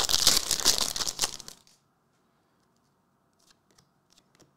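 Foil trading-card pack wrapper crinkling as it is torn open and the cards pulled out, stopping about a second and a half in. A few faint clicks of the cards being handled follow near the end.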